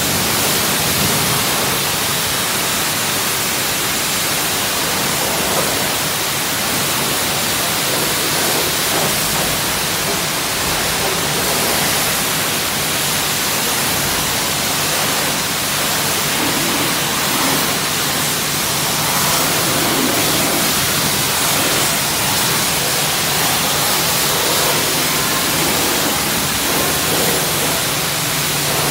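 High-pressure spray wand at a self-serve car wash blasting water onto a car's body, a steady hiss of spray.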